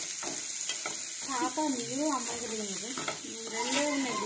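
Chicken curry frying and sizzling in a pan while a spoon stirs it, clicking and scraping against the pan. From about a second in, a wordless voice wavers up and down for about three seconds over the sizzle.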